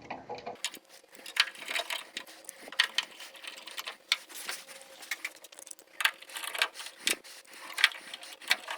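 Irregular small clicks and light metallic ticks as a printer's exit cover is fitted and its screws are driven in by hand.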